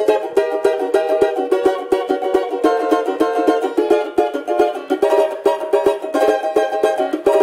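Brazilian banjo-cavaquinho with a ported back strummed in fast, even chord strokes, several a second, the chords changing every so often. The holes in its back give it a louder sound.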